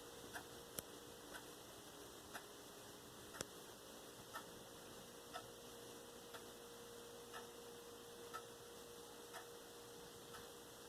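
Near silence with faint, regular ticks about once a second over a steady low hum.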